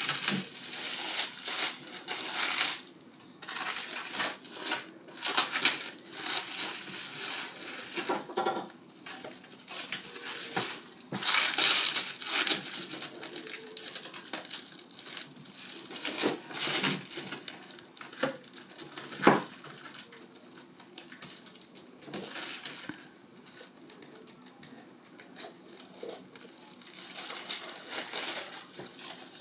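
Clear plastic film crinkling and rustling in irregular bursts as it is pulled off and bunched around an acrylic display case, with a single sharp tap about two-thirds of the way through.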